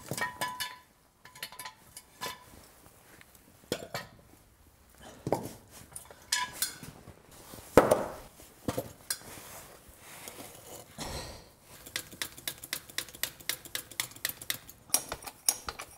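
Metal clanks and wooden knocks as a wooden block and a 30-ton hydraulic bottle jack are set in place under a tractor's hitch, with one loud knock about 8 s in. A quick run of clicks follows in the last few seconds.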